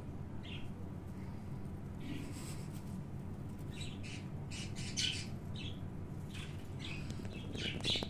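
Young budgie giving short, high chirps and squawks, scattered and coming more often in the second half, over a steady low hum.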